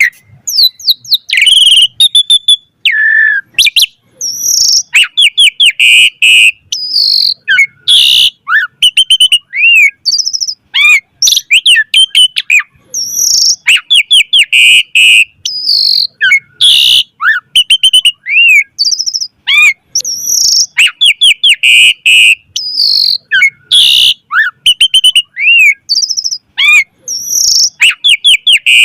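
Asian pied starling (jalak suren) singing nonstop in full voice: a varied string of clear whistles, rising and falling slurs, rapid clicking trills and harsh chattering notes. The same sequence of phrases comes round again about every 16 seconds, as in a looped recording.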